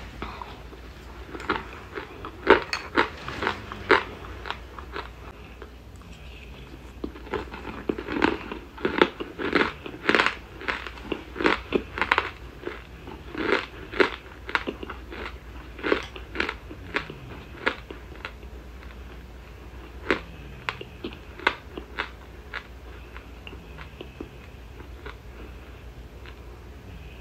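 Close-miked chewing of cornstarch chunks and powder: a run of sharp, irregular crunches, thickest in the middle and thinning out near the end.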